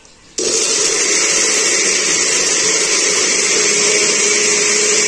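Countertop blender switching on about half a second in and running steadily at full speed, puréeing whole green tomatoes and chile into a green salsa.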